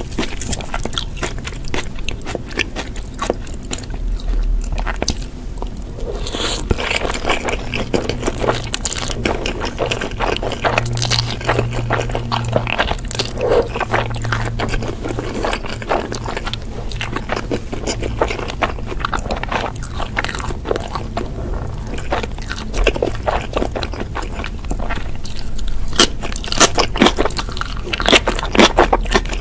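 Close-miked eating sounds of a person chewing and biting food, with a steady run of small wet clicks, smacks and crunches. The clicks come denser and louder near the end.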